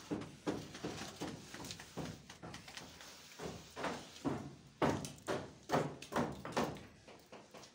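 An uneven series of knocks and thumps, about two a second, with the loudest a little past the middle.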